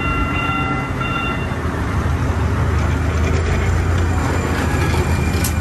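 Light rail train rolling slowly along the platform, a steady low rumble that grows louder after about two seconds. A high steady whine sounds for the first second and a half, and there is a sharp click near the end.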